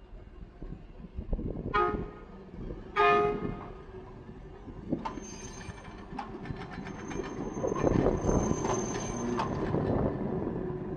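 Hankai Tramway streetcar (car 353) sounding its horn twice, briefly. It then rolls past with its wheels clicking rapidly over the track and a thin high wheel squeal.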